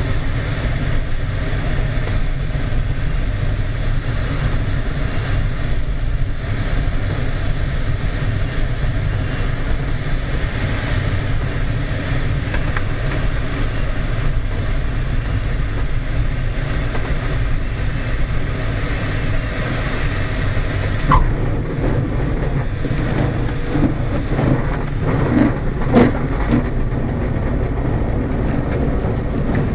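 Steady rush of airflow over a glider's canopy on final approach. About 21 seconds in there is a knock as the glider touches down, and the hiss falls off. It then rolls out over the ground with a few sharp bumps and rattles from the wheel and airframe.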